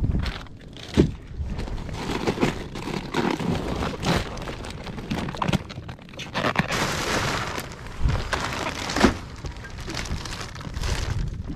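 Plastic bag of ice crinkling and ice cubes crunching and clattering as the bag is handled and packed around a fish, with a few sharp knocks, the loudest about a second in and about nine seconds in. The crinkling is densest about seven seconds in.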